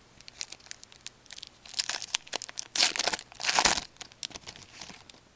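Wrapper of a 2008 Fleer Ultra hockey card pack crinkling as it is torn open, a run of small crackles with two louder rips, one just under three seconds in and one about half a second later.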